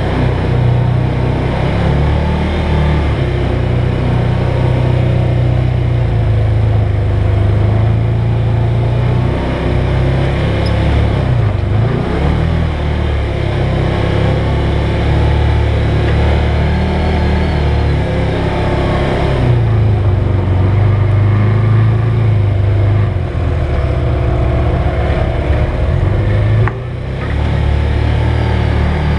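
Side-by-side UTV engine running while driving a rough dirt trail, the engine note rising and falling with the throttle, mixed with steady road and body noise. The sound drops briefly near the end.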